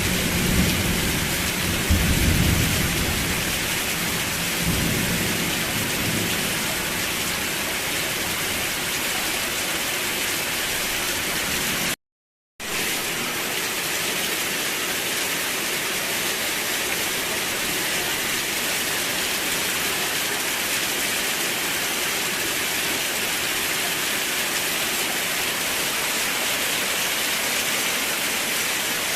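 Steady rain hiss, with a low rumble fading out over the first few seconds. About twelve seconds in the sound cuts out completely for half a second, then the rain resumes on its own.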